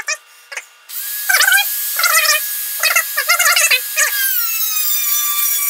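Dremel rotary tool with an abrasive cut-off wheel spinning up to a high whine about a second in, then cutting through a thin metal rod in several rough grinding bursts. Near the end the whine drops in pitch.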